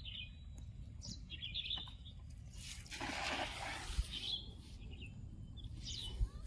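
Small birds chirping in short high calls every second or two, over a steady low rumble. A brief rush of noise comes about three seconds in.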